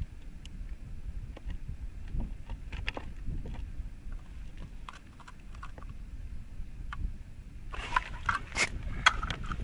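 Wind buffeting the microphone with a steady low rumble and a few faint clicks; about eight seconds in, a burst of crunching and rustling as the ice rod is handled and put down on the crusty snow-covered ice.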